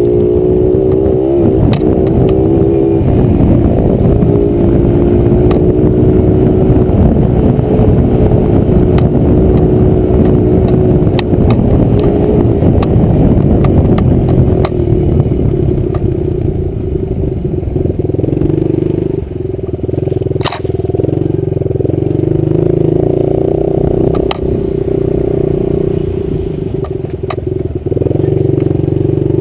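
Small 65cc two-stroke dirt bike engine running hard on a trail ride, its note shifting up and down with the throttle. Sharp clicks come here and there, one louder about two-thirds of the way through.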